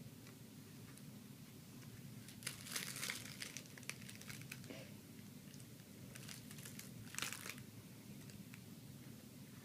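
Crinkling of something crinkly being handled, in two spells of a second or so, the first about two and a half seconds in and the second about six seconds in, over a faint low hum.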